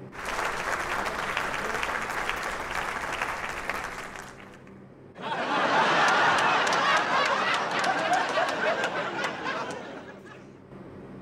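Audience applause with laughter, in two stretches: one lasting about four seconds, then after a short gap a louder one of about five seconds.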